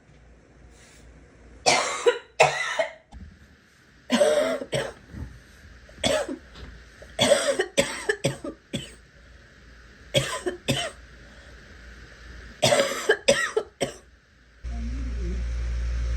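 A girl coughing in repeated short fits of one to several coughs, with pauses of a second or so between them. Near the end a steady low rumble comes in under the coughing.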